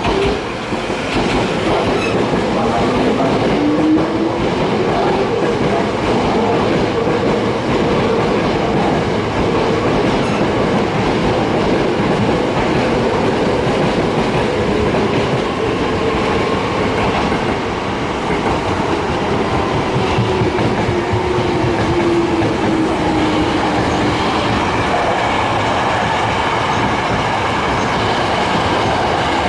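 Hankyu electric train running close past, its wheels clattering over the joints of short fixed-length jointed rails in a continuous heavy rumble. A whining tone rises in pitch a few seconds in and falls again later on.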